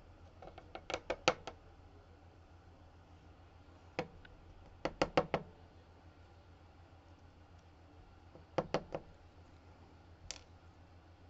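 Small, sharp metallic clicks and taps from tweezers and lock pins while key pins are loaded back into a Dom RS8 lock cylinder. They come in three quick clusters of several clicks, about a second in, near the middle and about three-quarters through, with single clicks between.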